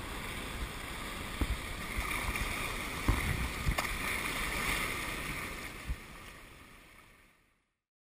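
Choppy lake water lapping and splashing close to the microphone, with scattered low knocks of small waves. The sound fades out near the end.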